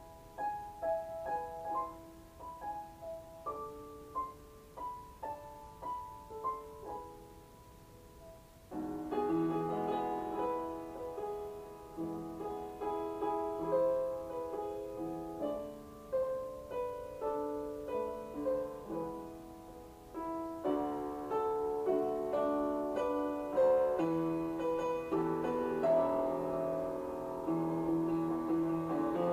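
Background piano music: a gentle melody of single notes that grows fuller, with chords, from about nine seconds in.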